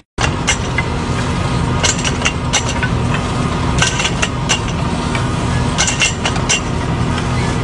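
Tractor engine running steadily under a stake-planting rig, with irregular sharp clacks and clinks from the wooden stakes and the rig's metal parts.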